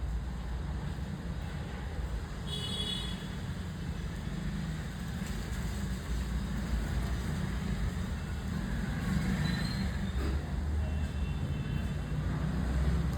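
Steady low background rumble, like road traffic, with no shot fired.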